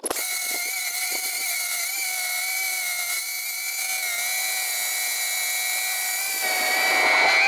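FPV racing quadcopter's brushless motors and propellers whining steadily in flight, heard close up from a camera mounted on the drone. The sound grows louder near the end.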